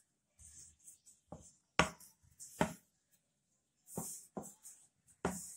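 Pastry dough being rolled out and shaped into a square on a floured board: about six sharp knocks against the board, with short scraping hiss between them.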